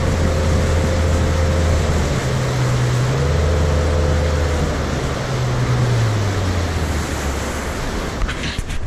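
Fishing boat underway at speed: the engine's low drone under a steady rush of wind and water. The engine note shifts up and down in pitch a couple of times, and the sound breaks off near the end.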